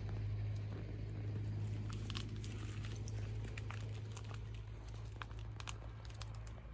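A steady low hum runs under scattered light crinkling clicks, thickest in the middle few seconds, like leaves rustled as someone shifts on a bed of leaves.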